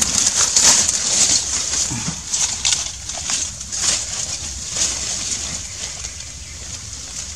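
Irregular crackling rustles of dry banana leaves and clothing as someone shifts and settles into a crouch, busiest in the first couple of seconds and thinning out toward the end.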